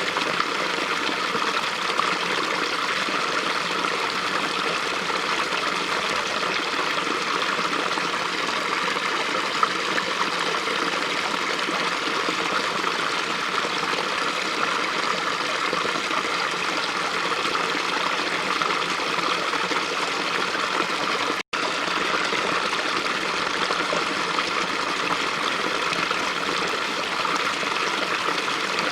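A lively small stream running steadily over its bed, a continuous babbling rush of water, with a momentary break in the sound about two-thirds of the way through.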